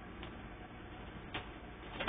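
Faint steady hiss with two light clicks, one about a quarter second in and one past the middle, from a DVD disc being handled.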